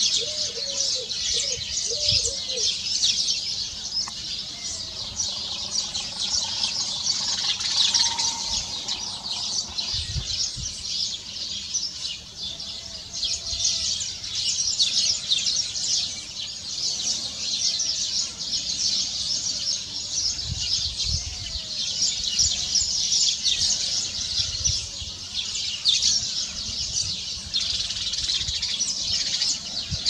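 Dense, continuous chorus of high-pitched bird chirping, with a few lower, arching calls repeated in the first few seconds.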